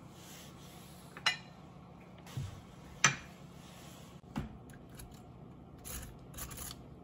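Kitchen handling noise: a few sharp clicks and knocks of utensils and pan, spaced about a second apart, the loudest about three seconds in, followed by short rustling noises near the end.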